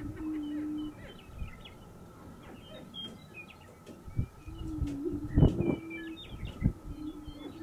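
Male greater prairie chickens booming: low, hollow hooting moans of about a second and a half each, one ending about a second in, another midway and a third starting near the end, with short higher cackling and whooping calls over them. A few sharp low thumps, the loudest about five and a half seconds in.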